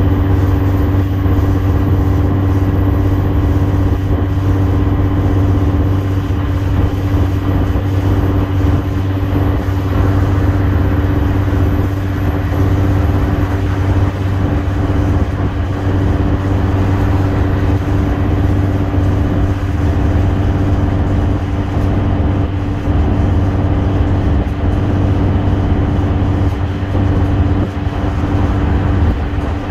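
Inside a Mercedes-Benz Citaro FL bus on the move: its OM906hLA 6.37-litre six-cylinder diesel engine runs at a steady pitch under tyre and road noise, with no gear changes or speed changes heard.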